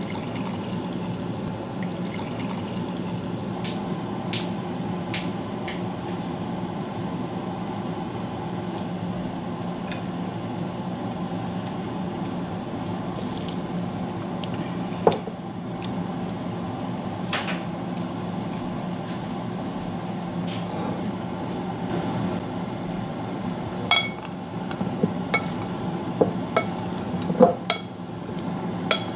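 Steady low hum of a kitchen appliance throughout. Over it, beet cooking water is poured from a pot into a glass mug at the start. There is a single sharp knock about halfway, and near the end a run of clinks and knocks as beets are tossed with a utensil in a ceramic serving dish.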